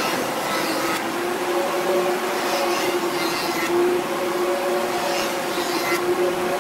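A jointer running with a steady machine tone, while a hardwood board is pushed across its spinning cutterhead and the knives plane its face.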